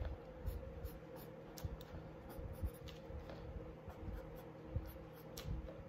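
Pencil scratching on sketchbook paper in short, faint sketching strokes, over a faint steady hum.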